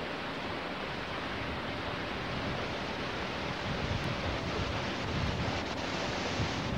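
Steady hiss with wind buffeting the microphone; the low rumble grows stronger in the second half.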